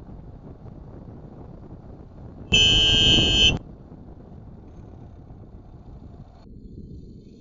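Car horn sounding one blast of about a second over the steady low hum of a car driving on the road.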